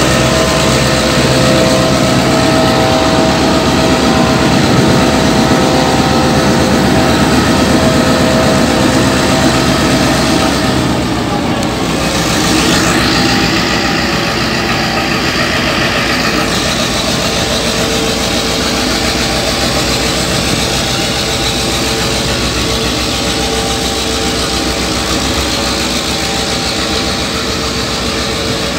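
Diesel locomotive T363's engine running steadily as the work train pulls away past the platform, followed by the rumble of flat wagons loaded with rails rolling by on the track. A brief high-pitched squeal rises about halfway through.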